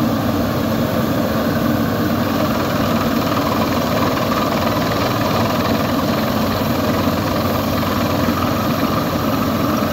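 Borewell drilling rig's engine running steadily as it drills, a constant loud machine drone with no change in pitch.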